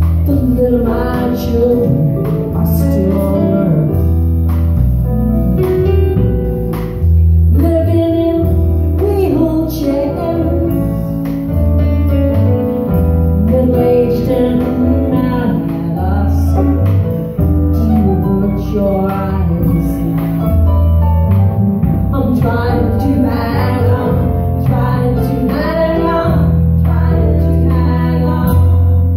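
A live band playing a song: women singing over guitar, a Roland stage piano and a drum kit, with a steady low bass line underneath.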